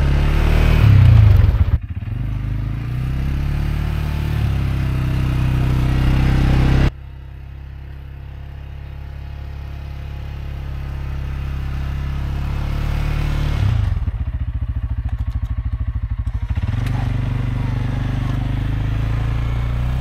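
CFMoto CForce 520L ATV engine running while plowing snow. It revs up briefly about a second in, drops suddenly in level about seven seconds in, settles to a slow, even idle for a couple of seconds near three-quarters of the way through, then picks up again.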